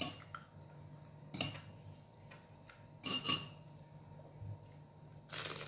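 A few soft clinks of cutlery and a plate, then a short, crisp crunch near the end from the wrapper of a fried spring roll (lumpia), which is very crunchy.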